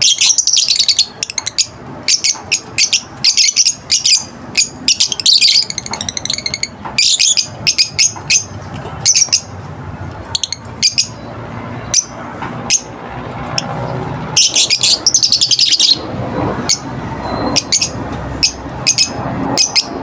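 Caged African lovebirds chirping in rapid strings of high-pitched chirps. The chirps come in repeated bursts separated by a few short pauses.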